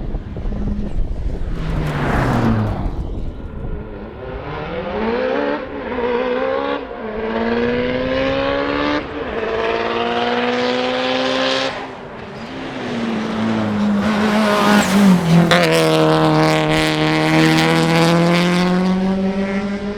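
Mitsubishi Lancer Evolution VI GSR's turbocharged four-cylinder engine at full throttle, pulling up through the gears. The pitch climbs and drops back at each of several upshifts, then holds a long pull that is loudest around three-quarters of the way through.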